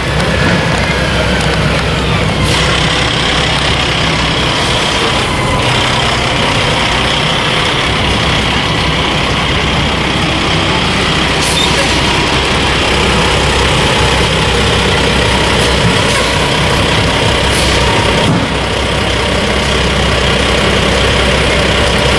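Heavy diesel engine of a work truck or construction machine running steadily, with a few short hisses along the way.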